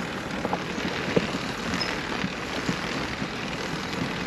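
Steady rolling noise of a bicycle towing a caravan trailer over concrete, with scattered small rattles and clicks.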